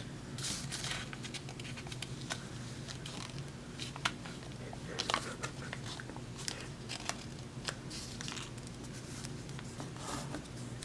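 Origami paper being folded and creased by hand: scattered crinkles and sharp paper crackles over a steady low hum.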